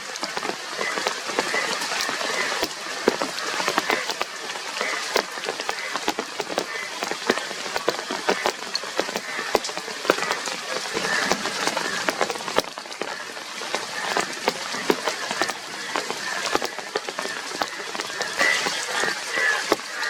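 Steady rain falling, with many close drops tapping and spattering. A faint, short high note repeats every second or so in the background, more often near the end.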